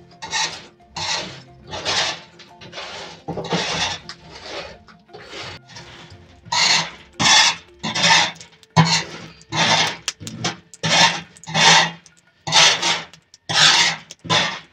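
Squash seeds being stirred and swept across a hot metal comal with a cloth as they toast: a dry rasping scrape in rhythmic strokes, about one or two a second.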